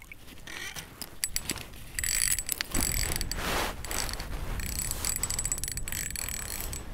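Small spinning reel being cranked to bring in a hooked lake trout: a run of rapid mechanical clicking and whirring from the reel's gears that picks up about two seconds in and keeps going.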